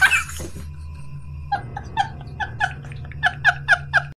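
A rapid series of short, pitched animal calls, about five a second, starting about a second and a half in, over a faint steady low hum.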